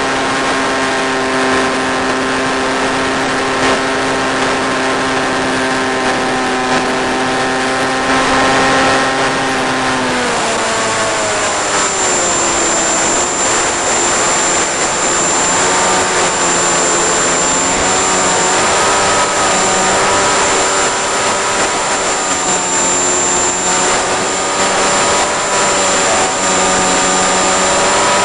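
Electric motor and propeller of an RC flying wing, carried over the video transmitter's audio channel with steady hiss. It runs as a steady pitched whine, then slides down in pitch about ten seconds in as the throttle is cut back, and holds lower, wavering slightly with small throttle changes.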